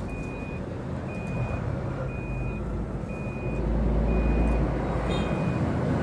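Electronic beeper giving one short high beep about every second, over a low rumble that grows louder around the middle.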